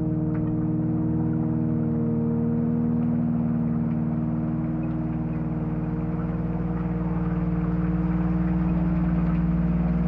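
Ambient drone from a VCV Rack software modular synthesizer: several steady sustained tones held together, with a low rumble that thickens about four seconds in. Underneath runs a soft hiss with scattered faint ticks from a recorded rain sample.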